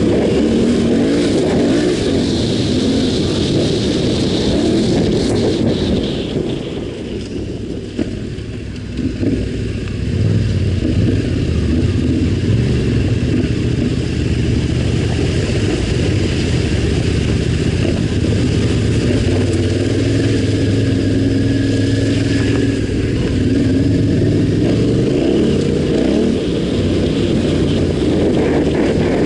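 Off-road motorcycle engine running under varying throttle on a rough dirt trail. It eases off and goes quieter about seven seconds in, holds a steady note through the middle, then picks up again near the end.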